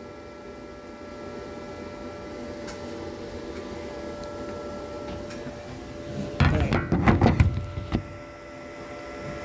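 Steady electrical hum of a welding machine at idle, several fixed tones at once. About six and a half seconds in, a loud burst of knocking and rustling handling noise lasts about a second and a half.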